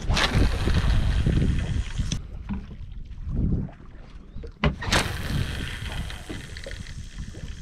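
Wind buffeting the microphone on an open boat at sea, with two casts of a spinning rod and reel, each a sudden swish followed by a hiss of line running off the reel: once at the start, and again about two-thirds of the way through.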